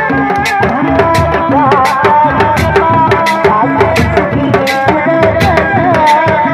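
Reak processional music: dogdog drums, a small one struck with a stick and large barrel drums beaten by hand, playing fast interlocking rhythms, with a high, wavering melody line running over them.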